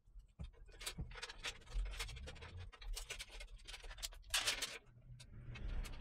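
Scraping, rubbing and light clicks of a fan-fitted water-cooling radiator being handled and positioned against the front of a PC case, with a louder scrape about four and a half seconds in.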